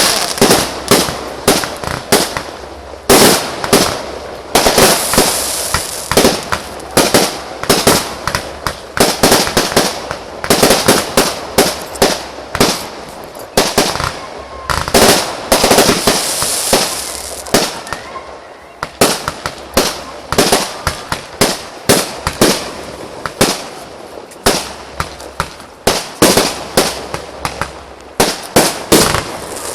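Fireworks show: a rapid, loud series of sharp bangs, about one to three a second, with stretches of hissing between them.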